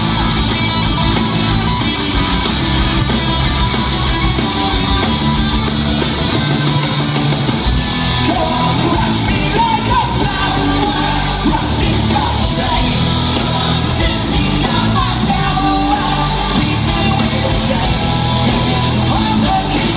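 Loud rock song: a full band playing steadily, with a sung and shouted vocal over it.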